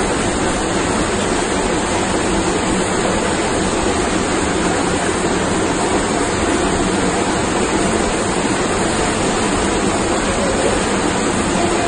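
Fast-flowing water of an underground cave stream rushing over rocks: a loud, steady rush with no breaks.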